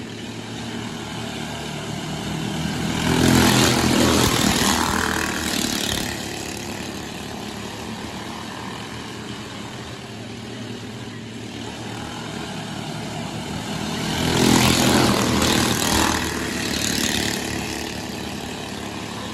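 Racing karts running laps on a dirt oval: a steady drone of small engines from around the track, swelling into a loud pass-by about three seconds in and again about fourteen seconds in, each lasting about three seconds.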